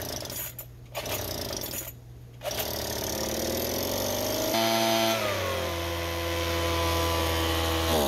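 Craftsman two-stroke leaf blower engine starting: a couple of short noisy bursts, then the engine catches about two and a half seconds in, its pitch climbing, and near five seconds it drops a little and settles into a steady, loud drone. It is being run to draw fresh mixed fuel through the lines after running on fuel believed to lack two-stroke oil.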